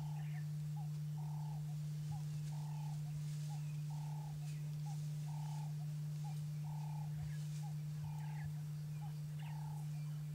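A steady low hum under an animal call repeating in an even rhythm: a longer note followed by two short ones, about every one and a half seconds.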